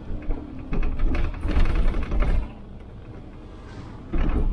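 Clattering and rattling inside a city bus over a low rumble, in two loud spells: one about a second in, and another starting near the end.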